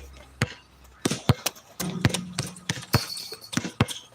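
Basketballs bouncing on a court: many irregular sharp thumps close together, from more than one ball in play.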